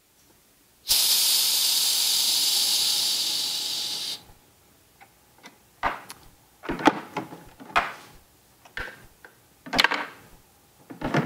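Pressurised CO2 hissing out of the iGulu F1 home-brewing keg as its CO2 supply is taken off. It is a loud, steady hiss of about three seconds that eases slightly and then cuts off sharply. After it come several light clicks and knocks of handling.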